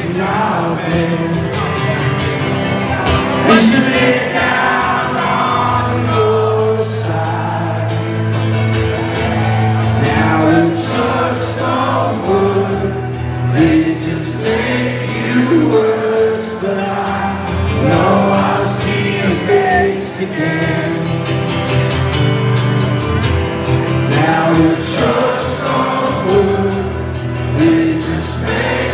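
A live band performing a slow ballad: strummed acoustic guitar with sustained bass and keyboard notes under a male lead vocal, heard from within the crowd in a large hall.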